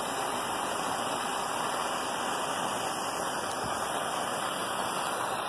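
Handheld gas torch hissing steadily as its flame heats a steel high-pressure diesel fuel line for silver brazing.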